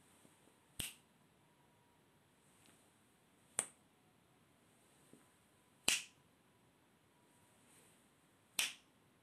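Four sharp finger snaps, about two and a half seconds apart, each with a short ring of room echo, made at a distance from the microphone to test how far it picks up sound.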